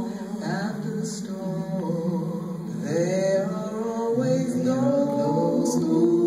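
Vocal music: a singing voice holding long notes and sliding between them, with no clear words.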